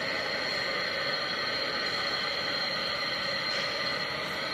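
Gas soldering torch burning with a steady hiss, its flame held on a copper pipe joint to heat it for soldering.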